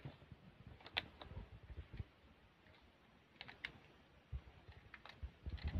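Small plastic parts of a budget mini drone kit and its cardboard box being handled: scattered light clicks and taps, some in quick pairs, with a few dull knocks.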